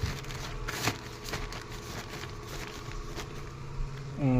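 Plastic sheeting crackling and a few clicks and taps as the cover is handled and magnets are set on it, over a steady low hum.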